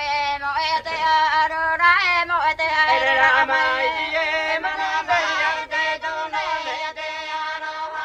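Music with singing: long sung notes that waver and glide up and down.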